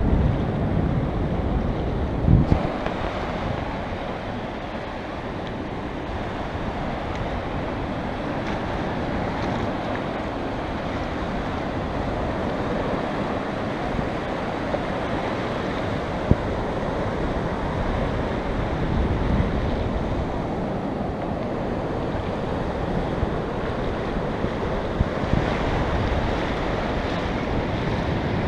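North Sea surf washing in over a shallow sandy beach, with wind buffeting the action camera's microphone. A brief thump about two and a half seconds in.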